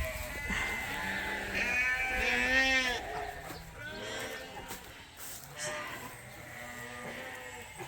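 Dorset ewes bleating, several calls overlapping. The calls are thickest in the first three seconds, then thin out to a few fainter bleats.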